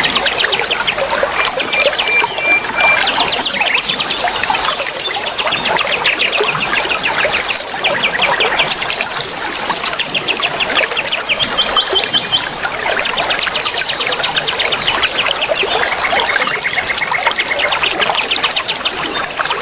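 A dense chorus of many young wild forest birds chirping, with rapid trills of evenly repeated high notes overlapping one another, over a steady trickle of water.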